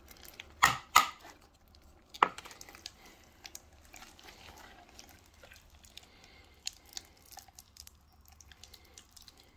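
Slime being stirred in a container with a utensil: three sharp knocks against the container in the first few seconds, then soft scattered clicks as the mixing goes on.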